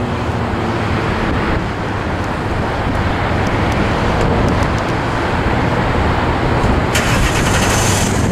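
Jet engines of a Boeing VC-25A (747-200B) on final approach, a loud, steady jet noise. About seven seconds in, the sound switches abruptly to a brighter hiss.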